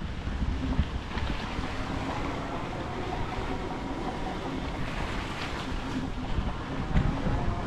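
Riding a Himiway Zebra e-bike on a wet gravel road: steady wind rush across the microphone over the hiss of the tyres rolling on gravel, with a couple of low thumps, one near the start and one near the end.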